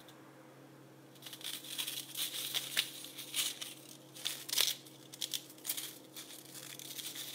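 Silver-tone beaded stretch bracelets clinking and rattling as they are handled close to the microphone: a run of small, sharp metallic clicks that starts about a second in.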